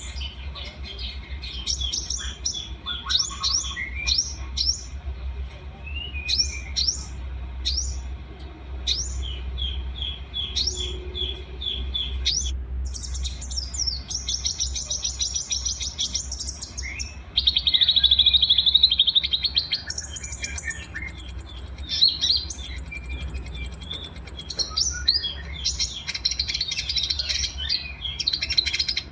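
Several small songbirds singing together: quick chirps, rapid trills and thin high whistles, with a louder buzzy trill about seventeen seconds in.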